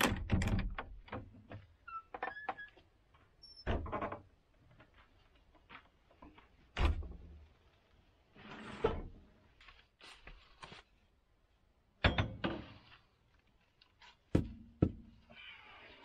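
Irregular knocks, clicks and thuds of objects being handled, with a short scraping rustle about nine seconds in; the loudest knocks come about twelve seconds in.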